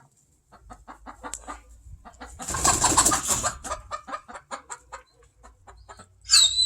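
Chickens clucking in a quick, even run of short clucks. About two and a half seconds in, a loud rushing burst of noise lasts about a second.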